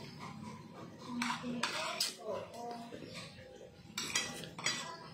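A spoon clinking against a dish several times while someone eats soup, with sharp clinks about a second in, at two seconds, and three in quick succession near the end.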